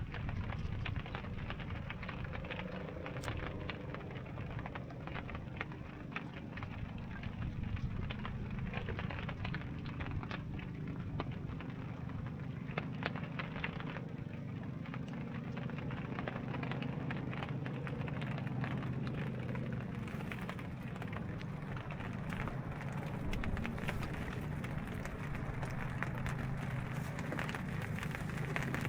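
Heavy rain falling: a steady rushing hiss with many small, close drop ticks.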